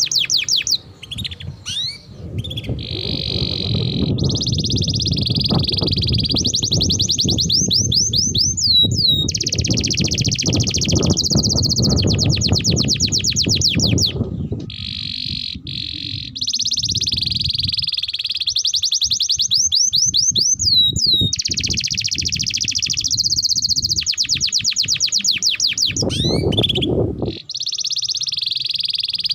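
Domestic canary singing a long, continuous song of rapid trills, moving from one trilled phrase to the next every second or two with only short breaks. A low rumbling noise runs underneath for much of the first half and again briefly near the end.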